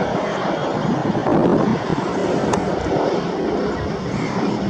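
Airbus A320 jet airliner engines running, a loud, steady rumbling roar, with wind buffeting the microphone.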